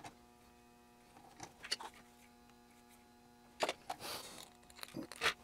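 Small components being handled and fitted into a kit circuit board held in a bench vise: a few sharp clicks and a brief rustle about two-thirds of the way in, over a faint steady hum.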